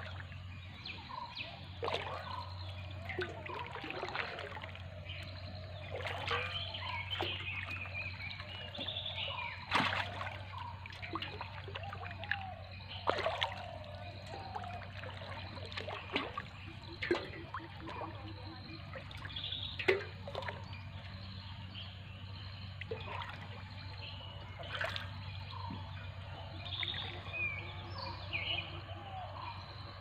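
Water dripping and trickling off a wet fishing net as it is paid out over the side of a wooden canoe, with small splashes and scattered sharp knocks.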